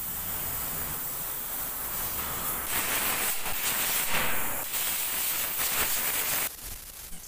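Compressed-air siphon spray gun hissing as it blasts cleaning solvent over a CV drive axle. The spray gets louder and more uneven about three seconds in, then cuts off sharply near the end.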